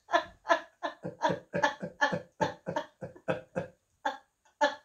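A man and a woman laughing helplessly: a fast run of short, breathy bursts of laughter, about three or four a second, that slows and spaces out near the end.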